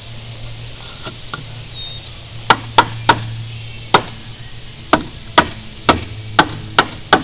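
Fence board being nailed on: about ten sharp strikes, a few tenths of a second to a second apart, starting about two and a half seconds in. A steady low hum runs underneath.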